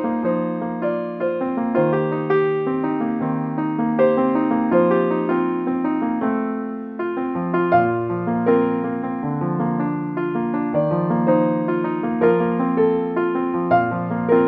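Background music: a slow, gentle piano piece, single notes of a melody over held lower notes, with a brief lull about seven seconds in.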